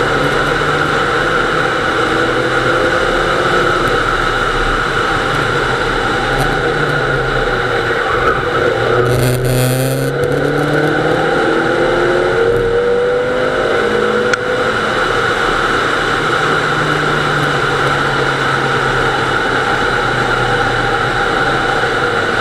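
Nissan Almera GTI's 2.0-litre four-cylinder engine running hard, rising in pitch as it accelerates, dropping back at gear changes and climbing again, with steady road and tyre noise heard from inside the car.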